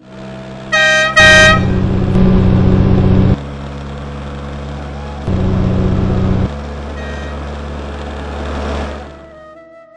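Motor scooter horn tooting twice, a short toot and then a slightly longer one, followed by the scooter's engine running steadily. The engine gets louder for two stretches and fades out near the end.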